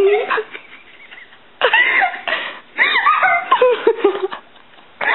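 A young woman's high-pitched laughing squeals while being tickled, in two loud bursts starting about a second and a half in, with a short break between them.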